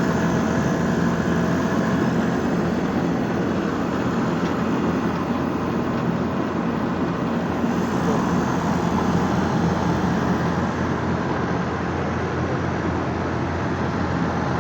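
Outdoor condensing unit of a cabinet-type split air conditioner running steadily with its newly replaced compressor: a steady low hum under the even rush of the condenser fan. The discharge line is hot and the suction line cold, so the new compressor is pumping and the system is cooling.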